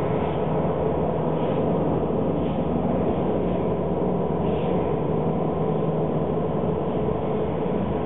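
A video installation's soundtrack: a steady, dense low rumble with faint held tones in it, unchanging in loudness, played over speakers in the exhibition room.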